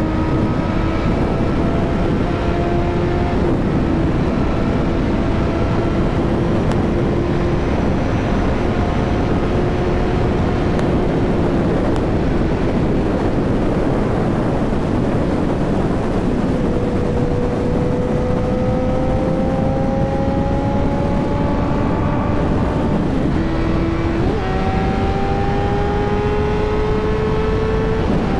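Honda CBR1000 inline-four engine running under way, its note mostly steady and slowly rising at times, with an abrupt jump in pitch about twenty-four seconds in. A loud steady rush of wind and road noise lies under it.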